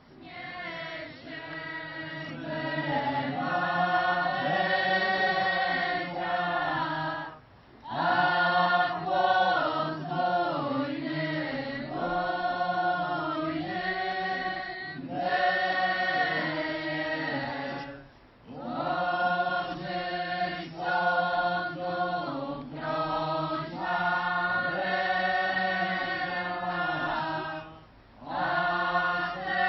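A chorus of voices singing a chant together in long held phrases, broken by short pauses about every ten seconds.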